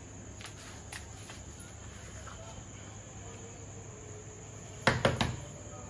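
Three quick knocks of a hand on a wooden double door near the end, over a faint steady background hum.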